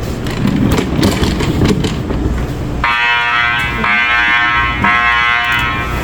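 Building fire alarm horn going off, starting abruptly about three seconds in: a buzzing tone repeated in blasts roughly once a second. A low rumbling, clattering noise fills the first three seconds.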